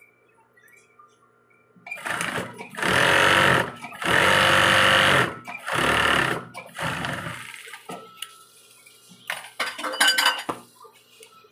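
Industrial sewing machine stitching in three short runs of about a second each, starting about three seconds in. Scattered clicks and rustles follow as the fabric is handled, with a cluster of sharp clicks near the end.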